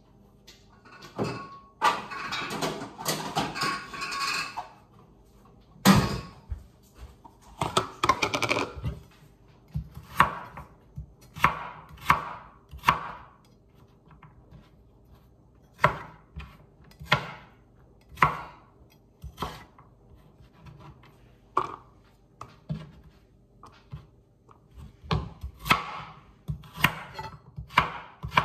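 Kitchen knife slicing through raw carrots onto a wooden cutting board: separate, unhurried cuts, each ending in a sharp knock on the board, about one a second. Over the first several seconds there is a denser clatter of kitchen items being handled.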